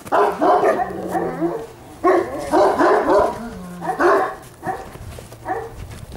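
Central Asian Shepherd puppies barking in runs of quick, high-pitched yaps, in three main bursts and a short one near the end.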